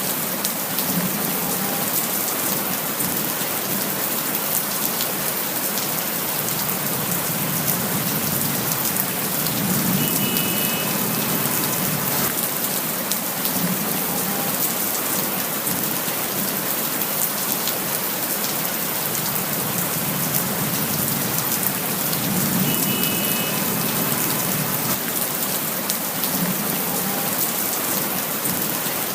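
Steady rain: an even hiss with many small drop impacts ticking through it, and a low rumble that swells every several seconds.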